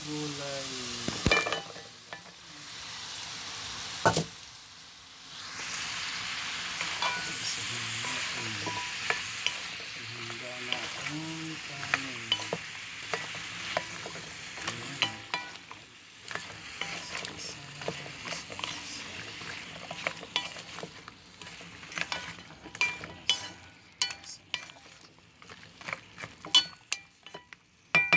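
Onion and tomato sizzling as they sauté in oil in a pot, stirred with a wooden spatula that knocks and scrapes against the pot. Squash and okra pieces are then stirred into the frying mixture, with frequent spatula clicks near the end.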